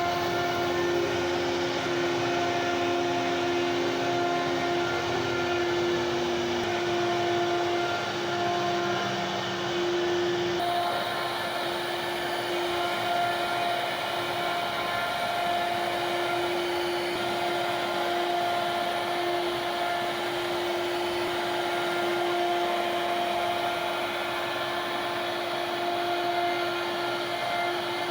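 CNC router spindle running with a steady high whine over a rushing noise, its pitch holding steady; the sound changes abruptly about ten seconds in.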